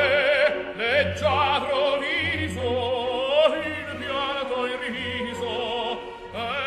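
Operatic singing with a wide vibrato over orchestral accompaniment, with low bass notes held about a second each.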